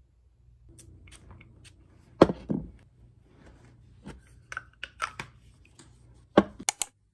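Small objects being handled and set down on a tabletop: two sharp knocks a little after two seconds in, a run of light clicks around four to five seconds, and another sharp knock followed by two short bright bursts near the end.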